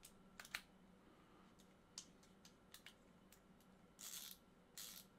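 Near silence with faint handling noise: a scattering of light clicks and taps, then two short rustles near the end, as tools and parts are handled during the rifle's reassembly.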